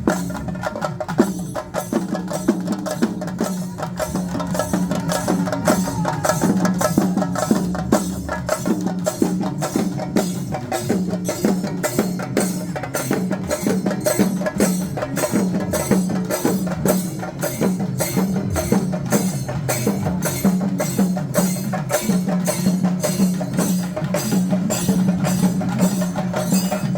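Street percussion music: drums and other struck instruments beat out a fast, steady rhythm over a steady low held tone.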